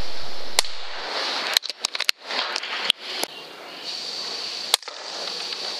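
Sharp, irregular pops and clicks from .22 air rifle shooting, several of them close together about a second and a half in. A thin, steady high tone runs under the second half.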